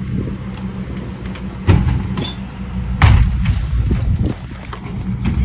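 Steady low rumble of a motor vehicle running, with two sharp knocks, one just under two seconds in and another at about three seconds.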